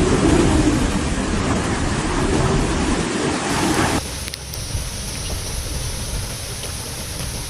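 Storm wind and heavy rain, loud with a deep rumble for about four seconds, then an abrupt cut to a quieter, steady hiss of rain.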